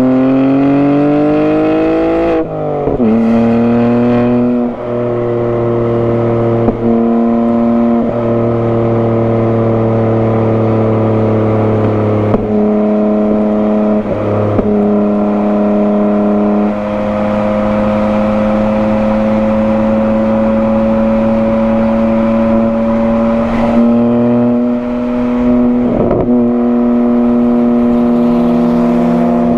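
BMW G80 M3's 3.0-litre twin-turbo inline-six, breathing through a non-resonated single midpipe, pulling hard under load. The revs climb for the first two seconds, then drop sharply about two and a half seconds in. After that the engine holds fairly steady revs that rise slowly, broken by several short dips.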